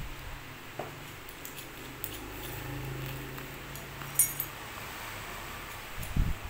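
A few light metallic clicks and clinks of stainless steel bidet spray fittings being handled and set down, the sharpest about four seconds in, over a steady low hum.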